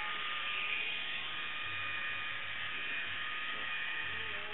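Small electric motor and gearbox of a motorised wooden Stegosaurus kit, whirring steadily.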